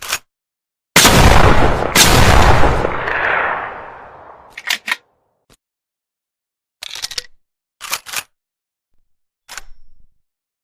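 A TOZ over/under shotgun fired twice, the two shots under a second apart, with a long echoing tail. Short sharp metallic clicks follow in several small groups, typical of the break-action being opened and closed.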